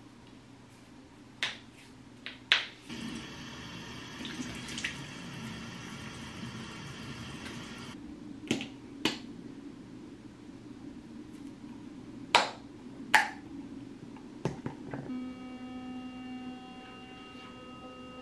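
Bathroom sink routine: a tap runs for about five seconds, with sharp clicks and taps of toiletries and a toothpaste tube handled at the counter. About three seconds before the end, an electric toothbrush switches on and buzzes steadily.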